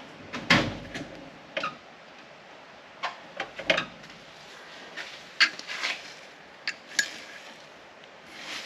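Metal tools and rusty steel strut parts clanking and knocking as they are handled and set down, about ten separate knocks at uneven intervals.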